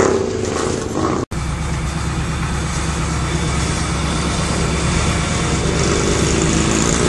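Car engine running steadily as the car rolls slowly, heard from inside the car. The sound cuts out for an instant about a second in.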